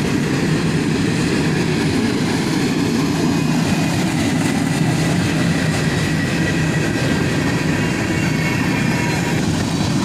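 Empty hopper cars of a unit freight train rolling past in a steady rumble of wheels on rails. A faint thin high tone runs over it and stops shortly before the end.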